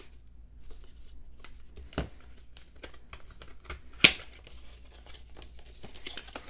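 Cardboard album box and its packaging being handled and opened: crinkling and rustling with small clicks and taps, and a sharp knock about four seconds in.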